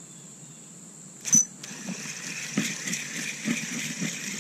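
Spinning reel being cranked to bring in a hooked perch, a rough rhythmic whirr with light knocks, after a sharp click about a second in. A steady high insect buzz sits underneath.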